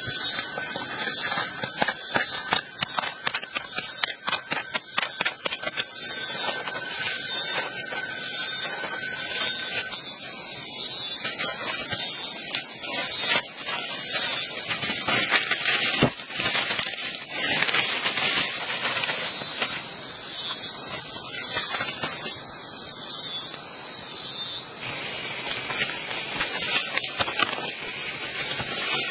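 Leaves and twigs rustling and crackling as they are handled and laid on the forest floor, over a loud, high-pitched, pulsing buzz of forest insects. A thin steady tone runs under it for the first third, and the insect drone turns higher and steadier near the end.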